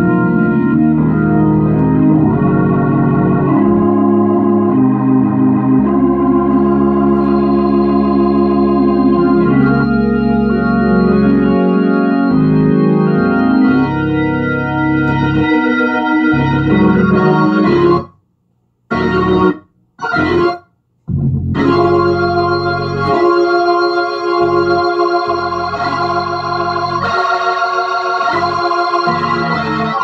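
Hammond organ played through a Leslie 147 rotating-speaker cabinet whose amplifier has just been refurbished, on test: held chords with a wavering shimmer, with three brief stops a little past the middle.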